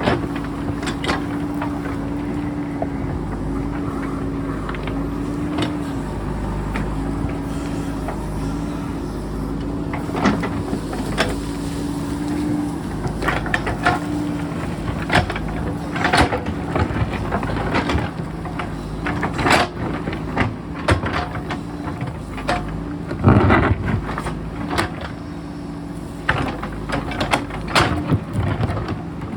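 JCB backhoe's diesel engine running steadily under varying load, with scattered knocks and clatter of rock as the machine digs; the loudest clatter comes about three-quarters of the way through.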